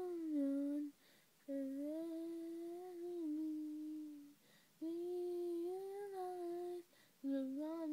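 A girl's voice humming a melody without accompaniment, in long held notes: about four phrases with short breaks between them.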